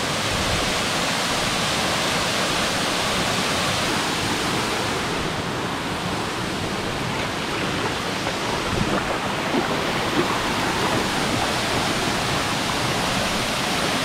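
Argyle Waterfall, a tall three-tiered cascade, with the steady rush of falling water.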